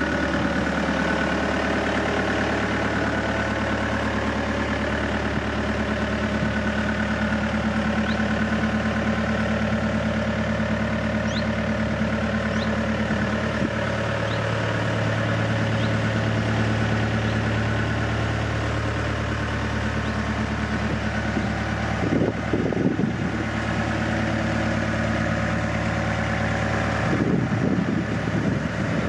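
Takeuchi TB180FR mini excavator's diesel engine idling steadily, with a couple of short bursts of wind buffeting the microphone near the end.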